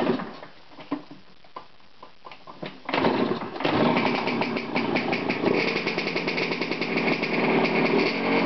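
A Derbi Senda motorbike engine starting from cold: a few sharp mechanical clicks and knocks, then about three seconds in the engine catches and keeps running loudly with a fast, uneven pulse as the revs rise and fall.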